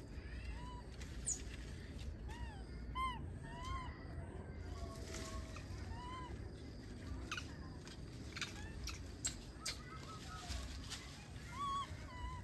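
Baby monkey giving short squeaky calls, each rising and then falling in pitch, a dozen or so spread through, with scattered light clicks of rustling.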